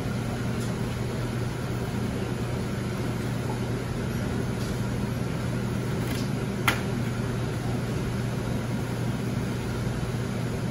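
Steady low mechanical hum of the commercial kitchen's ventilation, with one short sharp click about two-thirds of the way through.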